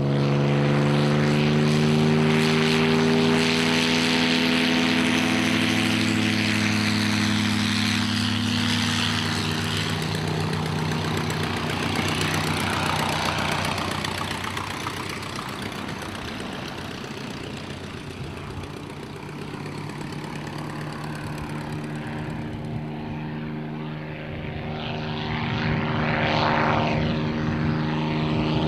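Percival EP.9 single-engine propeller plane at full power on its take-off run: a steady engine drone with propeller buzz. The drone fades and dulls as the plane climbs away, then grows louder again near the end as the plane flies back toward the listener.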